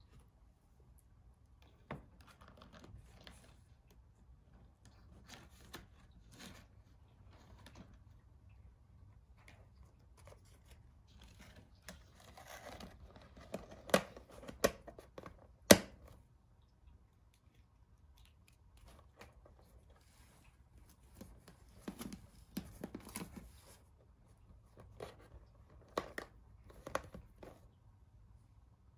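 Hands handling a plastic takeout container and wires on a cardboard box: scattered rustling, crinkling and light knocks, with two sharp plastic clicks about halfway through.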